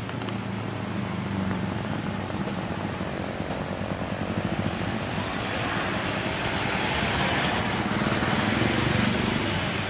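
Boeing 737-800's CFM56 turbofan engines running at taxi power, with a high, wavering fan whine over a low rumble. The sound grows louder about halfway through.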